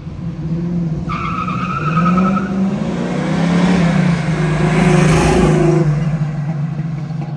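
The 1970 Camaro's fuel-injected 396 big-block V8, breathing through long-tube headers and Flowmaster mufflers, running and revving as the car drives up and past, loudest about five seconds in and easing off as it pulls away. A brief high squeal sounds about a second in and lasts about a second.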